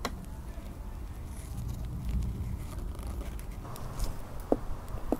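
Low rumble of wind on the microphone outdoors, with a sharp click at the start and a couple of short knocks near the end.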